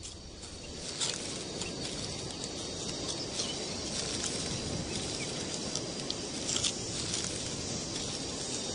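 Natural outdoor ambience: a steady hiss with a faint high insect drone and scattered short clicks and chirps.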